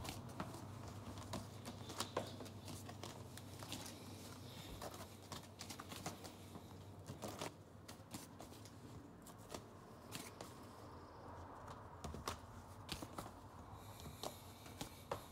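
Cardboard LP record sleeves being handled and swapped: faint, irregular taps, slides and rustles, over a low steady hum.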